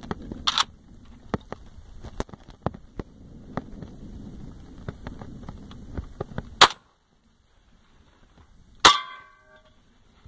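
Two shots from a 7.62 NATO rifle firing M80 ball, about two seconds apart, each one sharp and very loud. The second is followed by a short metallic ring as the bullet strikes the AR500 steel armor plate. Before the shots there are light clicks and rattles as the rifle is handled.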